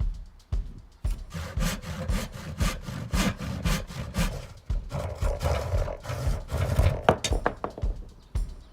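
Hand saw cutting through timber in rapid back-and-forth strokes, about four a second, starting about a second in and stopping around seven seconds, followed by a few sharp knocks. Background music with a steady beat runs under it.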